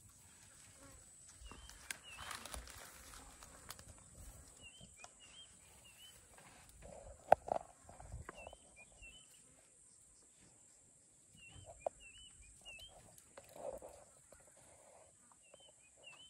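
Elephant calf feeding: crunching and rustling of stripped branches and grass, with a sharp snap about seven seconds in. Small birds chirp in short repeated phrases in the background.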